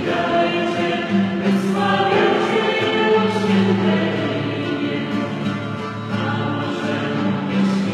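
Group of voices singing a slow Christian worship song, with long held notes.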